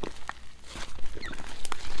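Slime being squished and kneaded by hand: a string of irregular sticky clicks and small air pops, with a brief squeak partway through.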